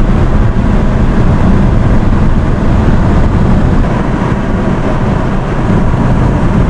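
Loud, steady, dense rumbling noise, heaviest in the low end.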